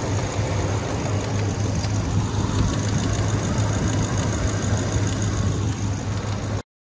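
Ford F-250 Super Duty's 6.2-litre gasoline V8 idling steadily with the hood open, a constant low hum. The sound cuts off suddenly near the end.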